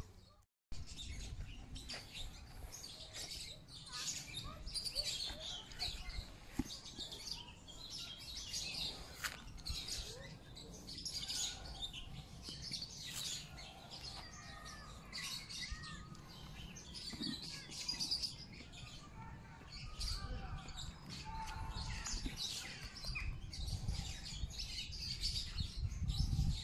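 Small birds chirping and twittering in many short calls, over a low rumble. The sound drops out for a moment near the start.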